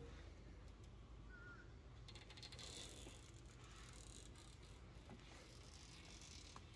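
Faint crackle and rustle of 1/16-inch fine-line masking tape being pulled off the roll and pressed down, in two brief stretches, with a few light clicks over a low steady room hum.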